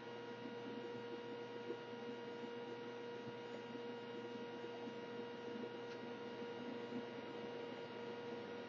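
Steady faint electrical hum with a few fixed high tones over a soft hiss: the recording's background room tone.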